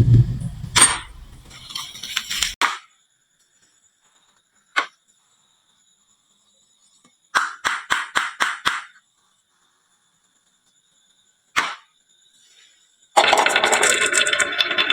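Marbles on a wooden marble run: single sharp clicks, a quick run of about six clicks, then, about 13 seconds in, a dense continuous rattle of many marbles rolling and knocking on wood.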